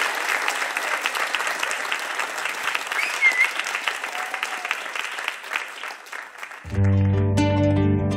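Audience applause that thins out and dies away; about seven seconds in the band starts a song with sustained low notes, and plucked classical guitar notes come in just after.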